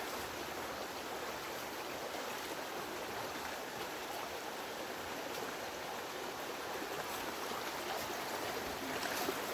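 Steady rushing of a small forest stream flowing over rocks, with a few faint ticks.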